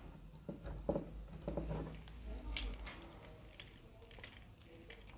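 Light clicks and knocks of hard model-car chassis parts being handled and moved on a cutting mat, with one sharper click about two and a half seconds in.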